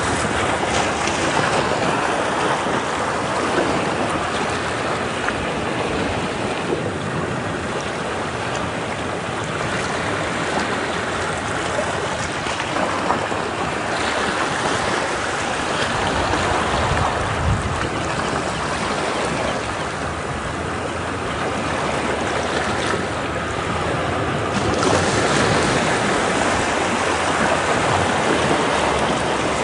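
Ocean waves breaking against rocks: a continuous rushing surf that ebbs and swells, growing louder about three-quarters of the way through.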